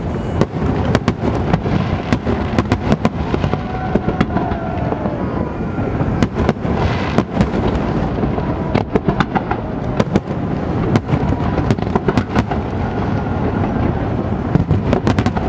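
Fireworks display: aerial shells bursting in quick, irregular succession, sharp bangs over a continuous low rumble of overlapping explosions.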